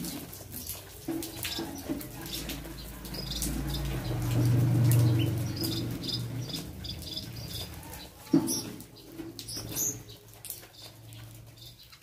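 Mixed flock of small aviary birds feeding: scattered chirps and calls, wing flutters and the small clicks of pecking. A low hum swells in the middle, and a single sharp knock sounds about eight seconds in.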